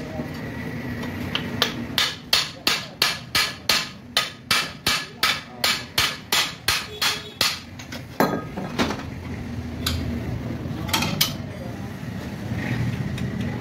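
Hammer striking the crankshaft end of a 70cc motorcycle engine's crankcase, about three sharp blows a second for some six seconds, driving the crankshaft out to split the case halves. A few single knocks follow.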